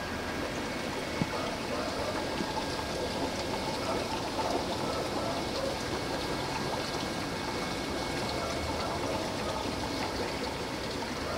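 Steady trickling and running of water from aquarium filters, with a faint steady high tone underneath and a single sharp click about a second in.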